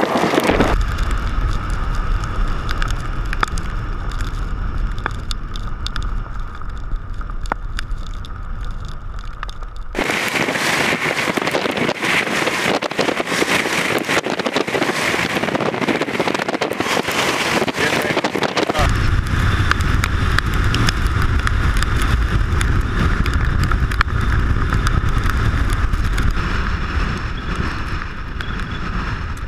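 Wind blasting over the microphone of a car driving at speed, with low road rumble under it. About ten seconds in, this cuts abruptly to a steady high hiss of wind and rain with no rumble. Near twenty seconds the rumble and wind buffeting return.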